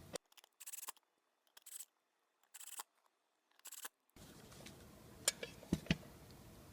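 Four short, high-pitched rasps about a second apart, then a few light clicks about two-thirds of the way through: a screwdriver driving the small screws that hold the illuminator's front cover back in place.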